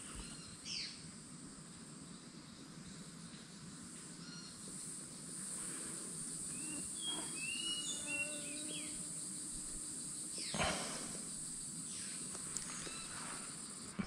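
Tropical rainforest canopy ambience: a steady high-pitched insect drone, with a run of short bird chirps about halfway through. A brief noise stands out about ten and a half seconds in.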